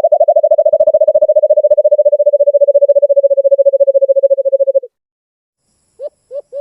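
Alimukon (a dove) calling: a run of low hooting notes that speeds into a fast, even trill and stops about five seconds in, then a new series of separate notes begins near the end.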